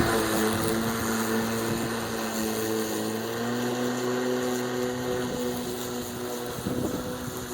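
Murray Twin cordless lawn mower's electric motor and blade running with a steady hum; the pitch steps up slightly about three seconds in.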